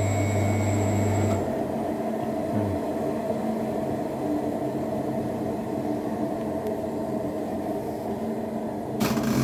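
Front-loading washing machine's motor running with a steady hum and whine, which cuts off about a second and a half in and winds down briefly. A lower steady rumble continues after that, and there is a short clatter of clicks near the end.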